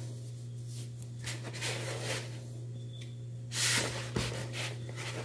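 Hands kneading a sticky bread dough: a few soft rubbing, pressing strokes, the loudest just before four seconds in. A steady low hum runs underneath.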